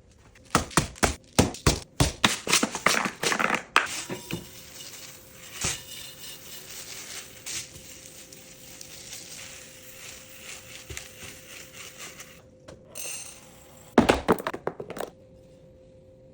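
Household items being handled while tidying a laundry room: a quick run of sharp knocks and clatter in the first few seconds, then softer rustling and crinkling with scattered clicks, and another short burst of knocks near the end. A faint steady hum sits underneath.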